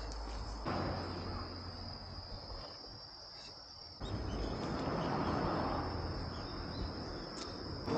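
Insects, crickets, chirring in one steady high tone, under a rushing noise that gets louder about four seconds in.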